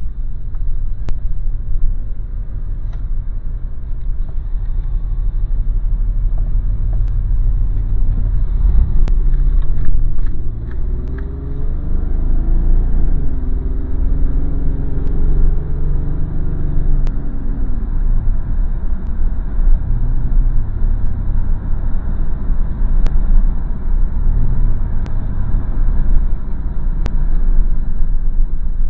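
Car driving, heard from inside the cabin through the small microphone of camera sunglasses: a steady, heavy low rumble of road and engine noise, with a faint tone that rises and falls in pitch around the middle.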